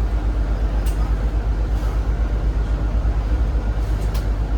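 Cabin running noise of a Zhongtong hybrid range-extender city bus on the move: a steady, pulsing low rumble, with a sharp click or rattle about a second in and another near the end.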